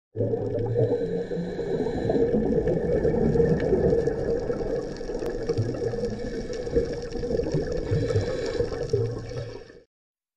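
Underwater sound picked up by the camera while diving: a steady, muffled rush of water with some low swells and hiss. It cuts out near the end.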